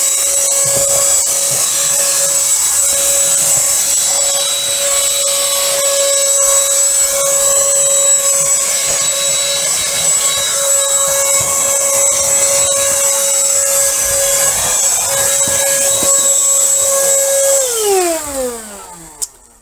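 Black & Decker Pivot cordless handheld vacuum, powered by a Milwaukee M18 battery, running at a steady high whine with rushing air as it sucks along stair treads. Near the end it is switched off and the motor winds down with a falling pitch.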